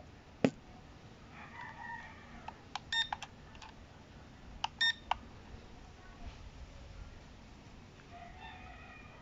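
A rooster crowing twice, once early and once near the end. Between the crows come short electronic beeps in two quick clusters, about three and five seconds in, and a sharp click about half a second in.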